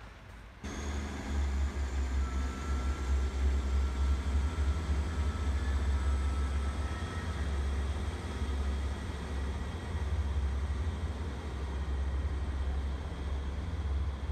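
Diesel multiple unit's engines running steadily with a deep, low rumble as the train moves away from the platform. The sound starts abruptly about half a second in.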